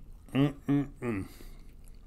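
A man's voice making three short muffled vocal sounds, the last one falling in pitch, through a mouthful of food.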